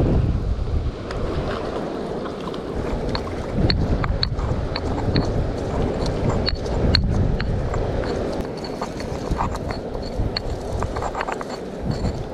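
Stone pestle knocking and grinding a wet seasoning paste in a stone mortar, a string of irregular sharp clicks, under loud wind buffeting the microphone.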